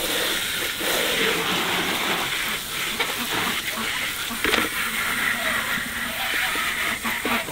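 Garden hose spray nozzle jetting water onto a plastic poultry drinker, a steady hiss of spray with a few knocks from the plastic parts being handled.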